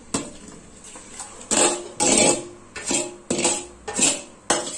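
A stainless-steel bowl being knocked and scraped against a pressure cooker as marinated chicken is tipped out of it. There is a run of clattering metal hits, about half a dozen, starting about a second and a half in.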